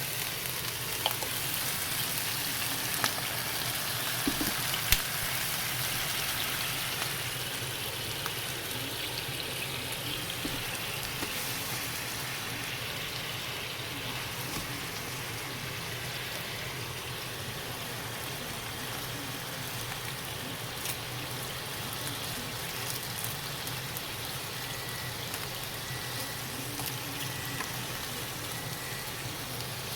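Daikon radish slices cooking in a frying pan: a steady sizzling hiss with a few sharp pops in the first five seconds, settling a little softer after that.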